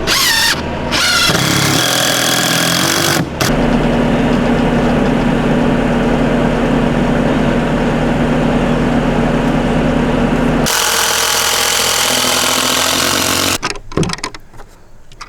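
An engine running steadily. Its tone changes about three and a half seconds in and again around eleven seconds, and it cuts off sharply near the end.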